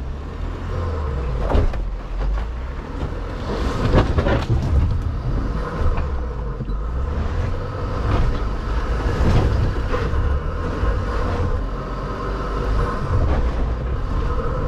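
VW Touareg R crawling over a rough, rocky track: a steady low rumble from the drivetrain and tyres, broken by irregular knocks and thumps as the wheels and suspension hit stones and potholes.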